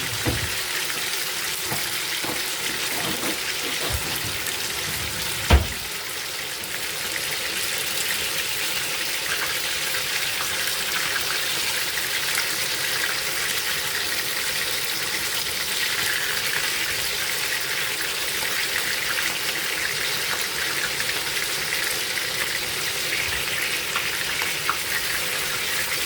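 Dormer sausages sizzling steadily in a frying pan. A few knocks of a utensil against the pan come in the first few seconds, the sharpest about five and a half seconds in, as the sausages are turned over.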